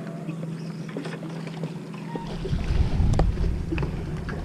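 Wind gusting on the microphone, a low rumble that starts about two seconds in and is loudest around three seconds, over a steady low hum, with a few short light clicks.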